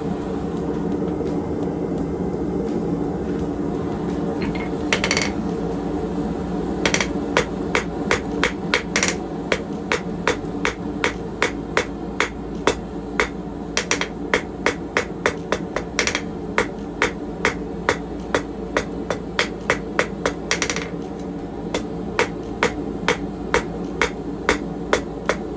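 Hand hammer striking hot steel on an anvil while drawing out a taper: a run of sharp blows about two a second, starting about five seconds in, pausing briefly near the end and then resuming. A steady low roar runs underneath.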